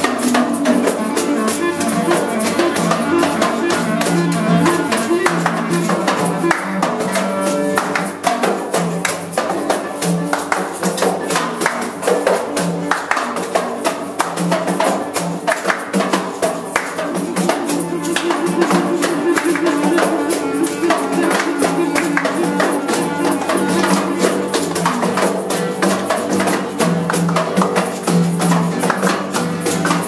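Music with a tambourine jingling and struck in a steady rhythm over sustained low pitched tones.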